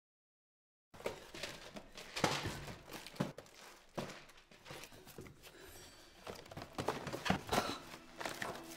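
Irregular knocks, thuds and rustling of objects being handled, starting about a second in.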